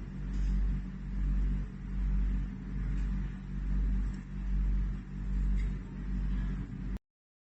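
A loud, deep rumble that swells and fades about once a second, in played-back audio. It cuts off suddenly near the end.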